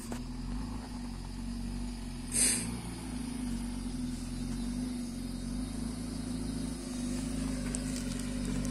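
Off-road jeep's engine running steadily at low revs as it crawls along a muddy track. A short noise burst about two and a half seconds in.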